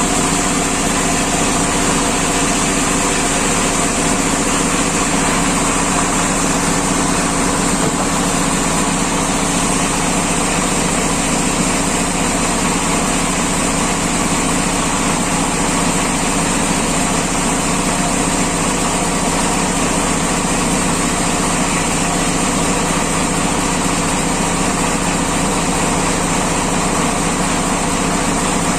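Sawmill machinery running at a steady speed, with a constant drone that does not change in pitch or loudness.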